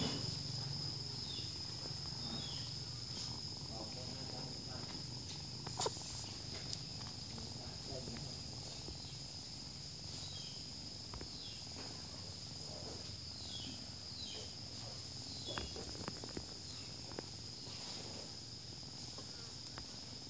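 Insects trilling steadily and high-pitched, with short falling chirps now and then and a few faint clicks.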